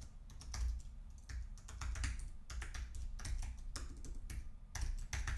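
Typing on a computer keyboard: quick, irregular keystrokes, with a few stronger strokes near the end.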